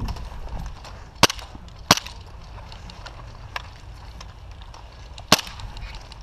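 Airsoft gun firing single shots: three sharp cracks, two close together about a second in and another about five seconds in.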